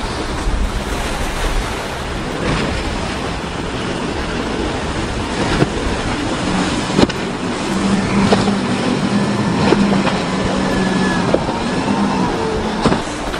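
Outboard-powered boats running hard through rough inlet chop: a steady rush of surf, spray and wind, with an engine drone that comes in about six seconds in and holds until near the end. A few sharp smacks stand out over the noise.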